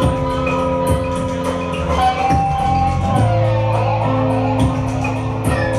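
Instrumental post-rock band playing live: bowed violin and cello lines with sliding notes over held low tones and keyboard, with light drum and cymbal hits keeping time.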